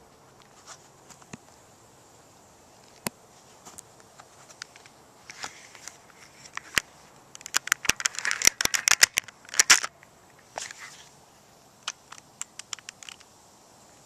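Close crackling and clicking movement noise: scattered sharp clicks, then a dense run of crackles for about two seconds starting some seven seconds in, and a few more clicks near the end.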